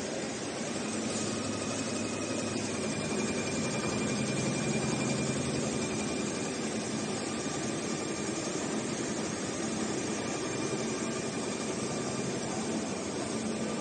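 Richpeace CNC heating-wire sewing machine running: a steady mechanical drone with a faint high whine that comes and goes.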